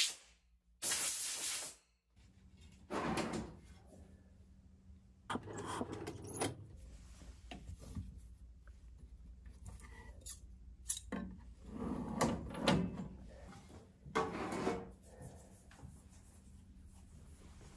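Two short hissing blasts of a compressed-air blow gun, then a metal tool-chest drawer sliding open with scissors clinking and being picked up, and fiberglass cloth rustling as it is handled.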